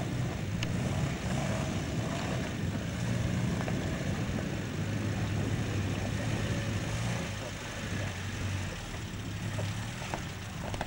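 Land Rover Series III engine running under load as the four-wheel drive crawls up a rutted, muddy off-road track: a steady low drone that eases off a little about three-quarters of the way through.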